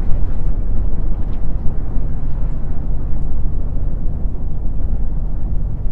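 Wind buffeting the microphone: a steady low rumble that rises and falls in strength.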